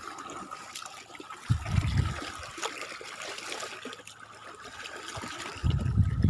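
Water trickling and splashing. A brief low rumble comes about one and a half seconds in, and a louder steady low rumble sets in near the end.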